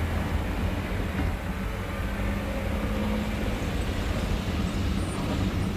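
Motor vehicle engine running as it moves at parade pace: a steady low rumble with a faint drifting engine tone.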